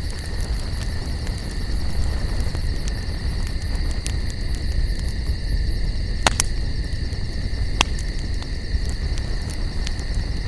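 Wood campfire burning, with a low rumble and scattered sharp crackles and pops. Two louder pops come about six and eight seconds in. A steady high-pitched tone runs underneath.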